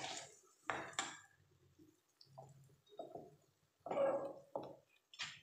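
Metal spoon scraping and clinking against a metal kadai while eggs are stirred into fried onion-tomato masala for egg bhurji, in a few separate strokes with the longest scrape about four seconds in.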